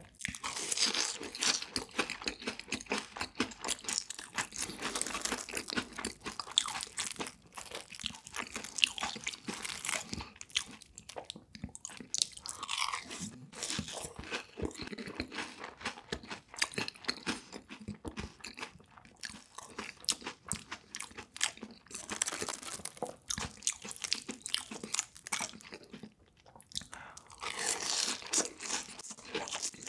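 Close-miked chewing and biting of crispy food, a dense run of loud crunches, with short pauses about a third of the way in and again near the end.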